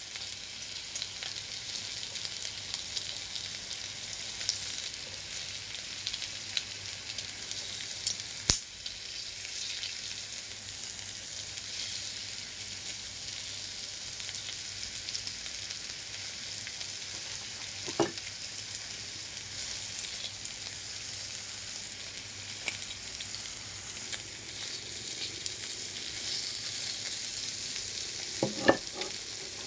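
Pork slices sizzling on an electric grill plate: a steady frying hiss with small crackles. A few sharp clicks from wooden chopsticks against the plate as the pieces are turned, about a third of the way in, around the middle and twice near the end.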